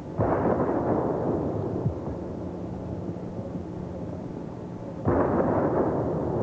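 Two cannon shots of a 21-gun salute, about five seconds apart, each a sudden boom that dies away over a second or two.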